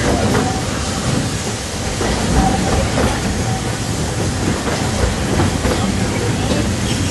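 Walt Disney World Railroad's narrow-gauge steam train running, heard from aboard a passenger car: a steady rumble of wheels on the rails with faint clicks now and then.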